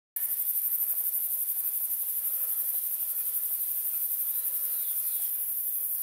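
A high-pitched, steady insect chorus with a fast, even pulse, cutting in suddenly just after the start.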